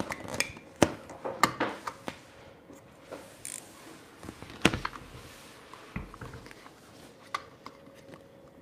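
Handwork on vinyl wrap around a chest freezer's plastic lid latch: a scatter of small clicks, taps and rustles from a knife and fingers on plastic and vinyl, the sharpest tap a little under five seconds in.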